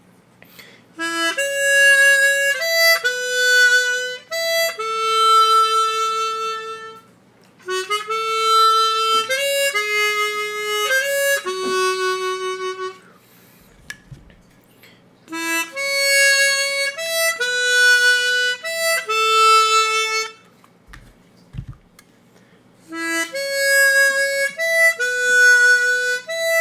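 Chromatic harmonica, a Hohner Super 64 and a hand-adjusted one, playing the same short melodic phrase several times with brief pauses between. The instruments are taken in turn so their tone and reed response can be compared. Faint low knocks sound in the pauses.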